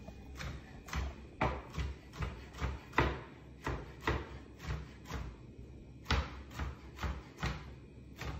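Kitchen knife chopping raw shrimp on a plastic cutting board: steady knocks about two a second as the shrimp are minced fine.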